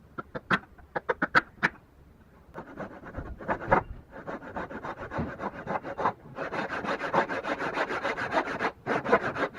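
Hand saw cutting wood in quick, rasping back-and-forth strokes. A few sharp taps come first.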